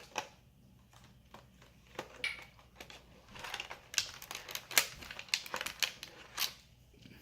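Small plastic toy pieces being handled and knocked together: a run of short clicks and clatters, busiest in the middle few seconds.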